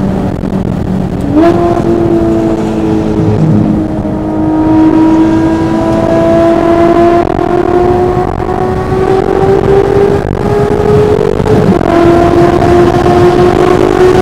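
Porsche 911 GT3 RS's naturally aspirated flat-six under load. Its pitch jumps up about a second in, then climbs slowly and steadily for about ten seconds. Near the end it drops briefly, a gear change, and climbs again.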